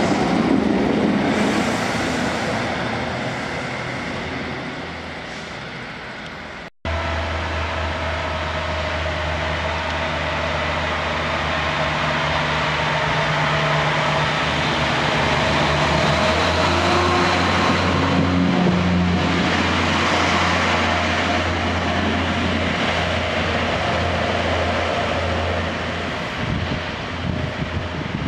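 A diesel multiple unit pulling away, its noise fading over the first few seconds; after a brief break, a Class 142 Pacer diesel railbus standing with its underfloor diesel engine idling in a steady low hum.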